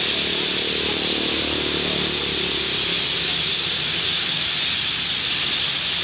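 Massed calling of a huge flock of small parrots flying over and into trees, thousands of voices blending into a loud, steady, high hiss.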